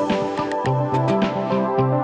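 Background music with a moving bass line and a light, regular beat.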